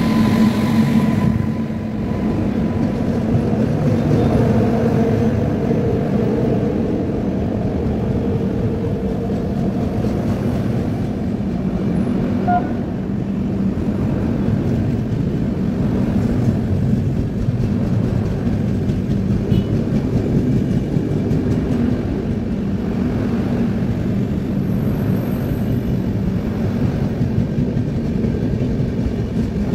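A WAP-5 electric locomotive passes close by at the start, then its train of passenger coaches rolls past at speed. The wheels on the rails make a loud, steady rolling noise that does not let up.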